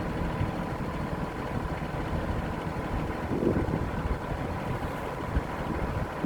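Excavator engine running steadily, with a faint steady whine over its low rumble.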